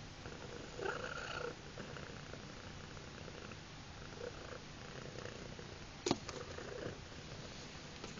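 Domestic cat purring steadily, with a sharp click about six seconds in.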